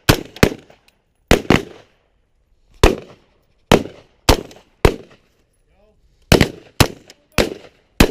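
Rifles firing single shots at an irregular pace, about a dozen sharp cracks with short echoes, several shooters overlapping, during a shoulder-transfer shooting drill.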